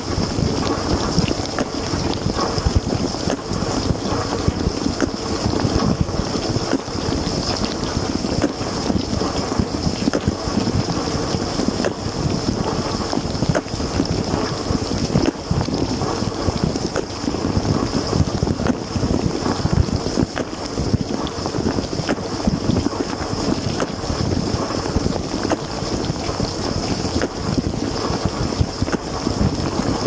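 Water from an LG dishwasher's spray arms splashing against the racks and dishes in the middle of a wash cycle: a steady rushing noise with a constant high whine.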